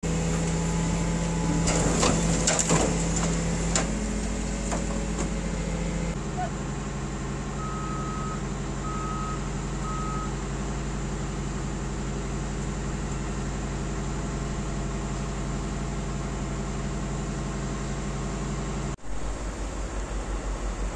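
Diesel engines of heavy earthmoving machines (excavators and a wheel loader) running steadily, with a few sharp metal clanks in the first four seconds and three short reversing beeps near the middle. Near the end the sound cuts to a closer diesel engine running with an even, pulsing throb.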